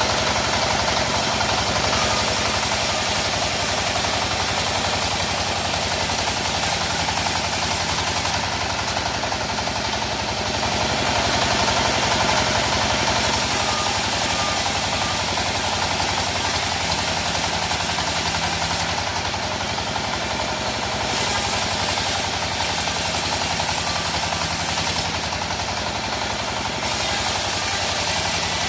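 Engine of a mobile circular wood saw running steadily with fast, even firing pulses. A high hiss over it drops away for a couple of seconds three times.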